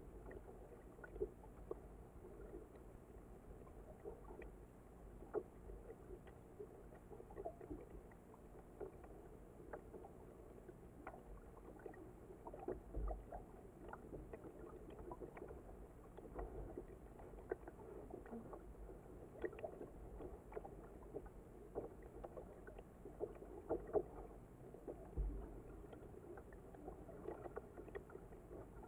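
Quiet kayak paddling: the blades of a double-bladed paddle dipping into the water and splashing with each stroke, with irregular small drips and ticks of water.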